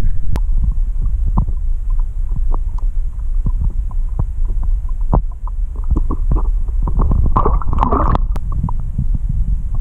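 Muffled low rumble of water heard through an underwater camera, with scattered knocks and clicks. About seven seconds in comes a second-long burst of bubbling and splashing as a perch is pulled up toward the surface.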